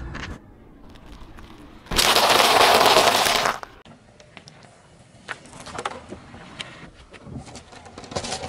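A car tyre rolling slowly over asphalt and crushing things beneath it: scattered cracks and crackles, with a loud burst of noise about two seconds in that lasts about a second and a half.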